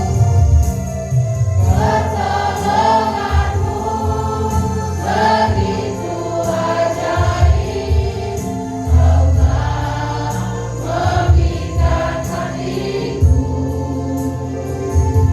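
Voices singing a Christian worship song in phrases, over a steady instrumental accompaniment with a strong bass line.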